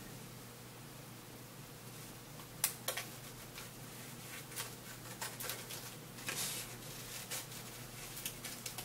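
Faint rustling and scattered light clicks as a flash tattoo sheet is handled, over quiet room tone.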